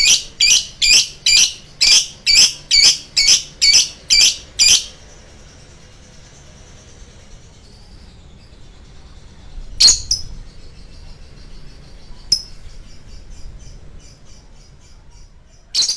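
Lovebird giving its long run of loud, shrill repeated calls, about three a second, which breaks off about five seconds in. Quieter twittering follows, with two sharp clicks, and then one more loud call at the end.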